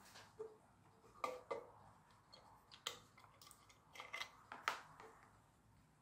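Irregular sharp clicks and light knocks from a waving cat figure being picked up, tipped over and handled: its battery compartment is opened and the dummy AA battery is taken out.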